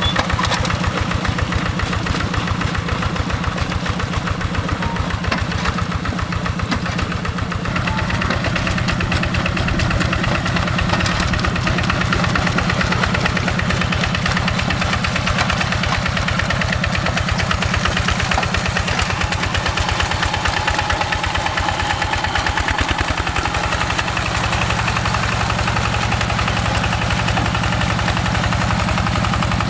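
Single-cylinder Yanmar diesel engine of a Quick G1000 two-wheel hand tractor running steadily with a rapid, even beat. Its pitch shifts slightly about eight seconds in and again near twenty-four seconds.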